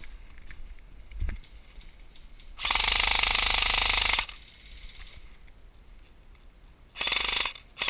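Electric airsoft gun firing full-auto: a burst of about a second and a half a few seconds in, then a shorter burst near the end, each a fast mechanical rattle of the gearbox cycling.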